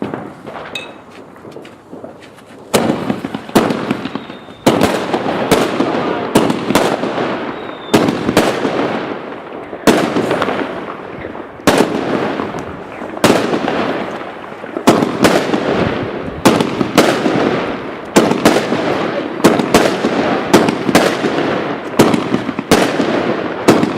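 Goldsword firework going off: after a few faint pops, a dense crackle starts about three seconds in and keeps going, broken by sharp bangs every second or so.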